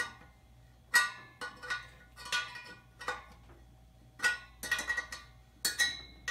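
Spoke wrench clinking against the steel spokes of a motorcycle wheel as the spokes are tightened during truing: a string of sharp metallic clinks, each ringing briefly, about eight to ten of them at uneven intervals.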